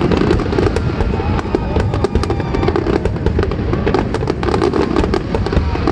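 A dense barrage of fireworks: rapid sharp bangs and crackles over a continuous low rumble.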